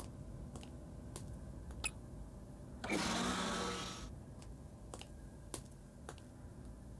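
Anime sound effects: steady footsteps on a hard floor, a step about every half second. About three seconds in, a sci-fi elevator door slides open with a hissing whoosh and a low hum lasting about a second, and then the footsteps go on.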